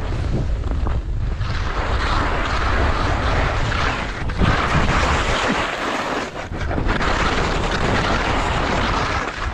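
Skis sliding over snow on a downhill run, mixed with wind noise on the microphone; the sliding noise drops out briefly twice, about four and six seconds in.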